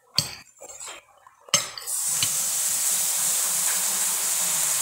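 Two sharp clinks of cutlery against dishes, then from about two seconds in a steady sizzle of sausages frying in a pan.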